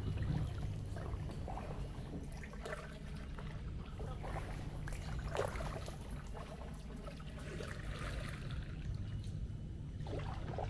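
Kayak paddle dipping into calm water, with a few short splashes and water trickling off the blade between strokes over a steady low rumble.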